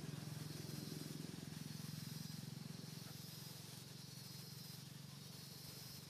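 Steady outdoor background: a low, even hum with a constant high hiss over it, like distant insects, and no distinct events.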